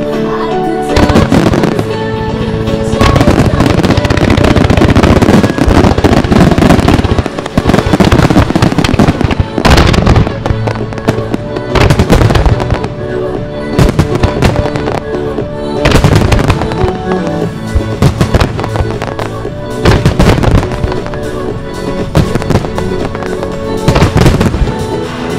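Music starmine fireworks: aerial shells and mines firing in quick succession, with many sharp bursts and heavy booms over loud accompanying music. A dense run of rapid bursts comes first, then big booms land about every two seconds.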